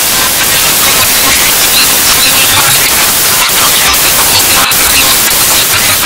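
A song distorted so heavily that it plays as a loud, continuous wall of white-noise hiss, with short bass notes coming through underneath.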